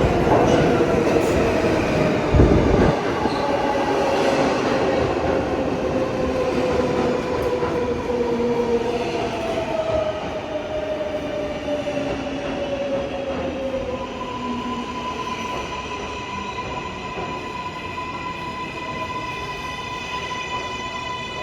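New York City L subway train running on the rails and slowing: its motor whine glides down in pitch and the wheels squeal, with a low thud about two seconds in. The rumble fades slowly, and steady high tones hold through the last several seconds.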